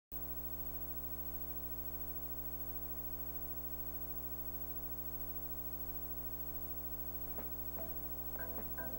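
A steady low hum with a stack of even tones, from the tape transfer. About seven seconds in, plucked notes begin the background music.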